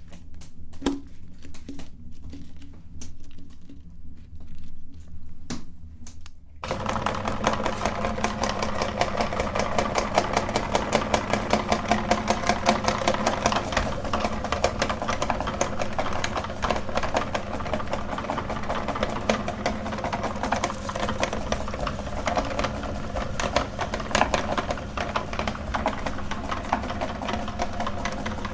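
Scattered soft clicks, then about six and a half seconds in an electric meat grinder's motor starts abruptly and runs steadily, grinding jelly candy.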